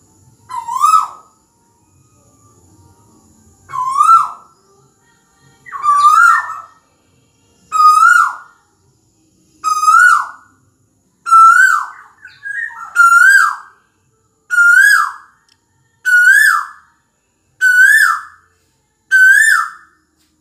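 Male Asian koel calling: a repeated two-note 'ko-el' whistle, about a dozen calls that climb in pitch and come closer together as the series goes on.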